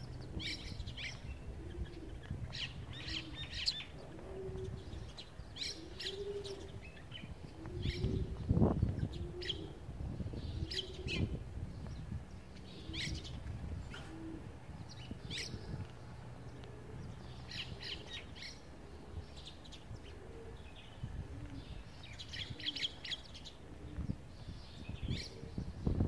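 A flock of sparrows chirping while feeding on scattered grain: short, high chirps come in quick clusters every second or two, over a low background rumble.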